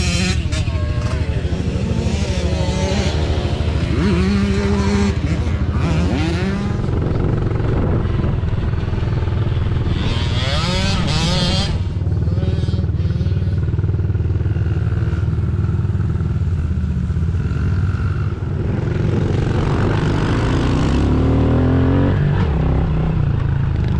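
Mini dirt bike engines running and revving, rising and falling in pitch as they are throttled.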